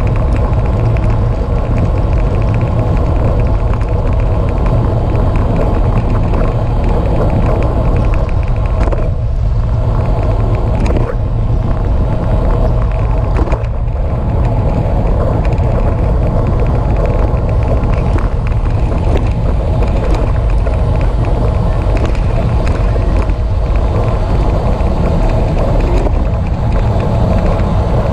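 Steady wind rush and low rumble on the microphone of a camera riding on a moving road bicycle.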